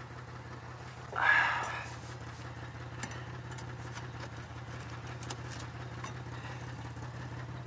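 2002 Chevy Malibu engine idling steadily with a low, even hum. There is a brief, louder noisy burst about a second in, and a few faint ticks later.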